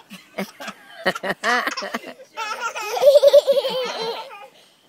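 A baby girl laughing in a run of rapid repeated bursts, loudest about three seconds in and trailing off near the end.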